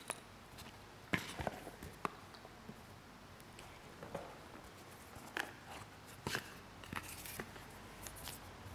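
Paper cards being handled: soft rustles and light taps, about eight short scattered sounds, as cards are put down and a new one is drawn from a basket.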